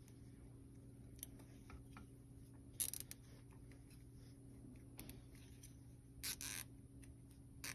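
Plastic zip tie being cinched around a USB cable on a circuit board: faint, short ratcheting rasps, one about three seconds in and a quick pair a little past six seconds, over a low steady hum.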